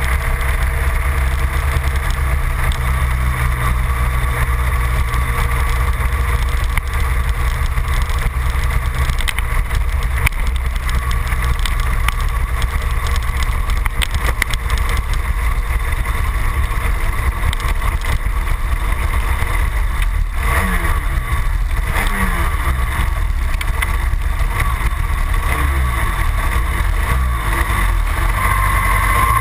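Yamaha TZ250 two-stroke engine of a superkart, heard on board, running steadily at low revs as the kart rolls slowly back through the pits, with a few brief rises and falls in pitch about two-thirds of the way through.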